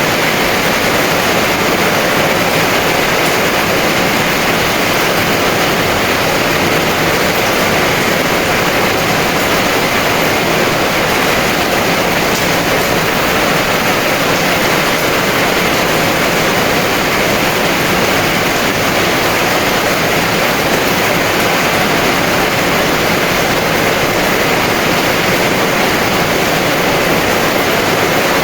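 Heavy rain falling in a steady, even downpour, with no drops or thunder standing out.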